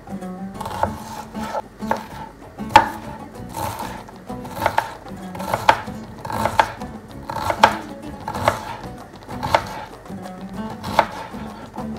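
Chef's knife dicing an onion on a plastic cutting board: sharp knocks of the blade hitting the board, irregular, roughly one a second.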